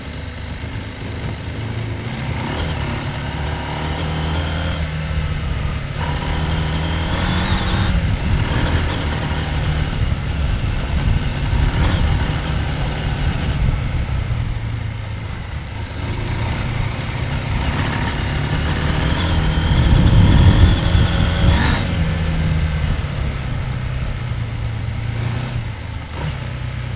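Husqvarna Norden 901 parallel-twin engine riding off-road. The engine note rises and falls over and over as the throttle opens and closes, and is loudest about twenty seconds in.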